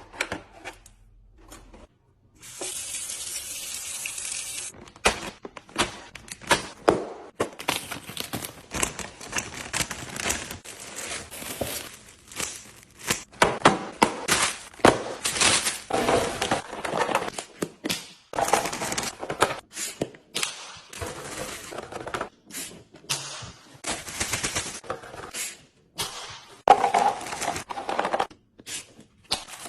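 Fridge-restocking handling sounds: a short spray-like hiss about two to four seconds in, then a long run of sharp clicks, knocks and rustling as containers and packaging are handled and set down.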